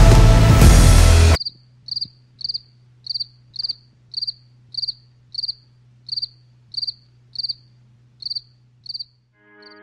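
Rock music cuts off abruptly about a second and a half in, leaving a cricket chirping steadily, a little under two chirps a second, each chirp a quick trill of pulses, over a faint low hum. It is the 'crickets' gag for an empty, silent room.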